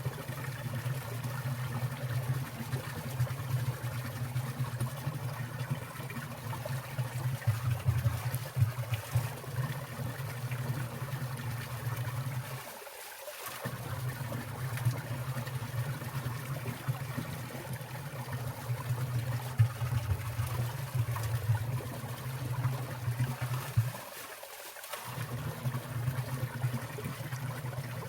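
Water trickling and splashing in a winter mountain stream, with water falling from icicles, a steady flow. The low part of the flow briefly drops away twice.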